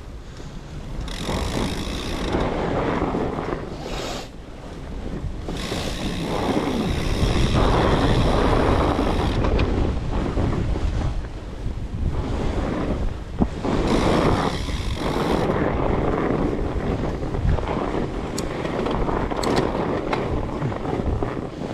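Wind buffeting an action camera's microphone while riding a fat bike, a rushing noise that swells and fades in gusts. A few sharp clicks come near the end.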